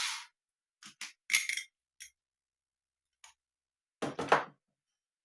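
Light metallic clinks and taps in a few short clusters as the neck pickup and its small hardware are worked loose in an electric guitar's body. The loudest cluster comes near the end. A power screwdriver's whir cuts off just as it begins.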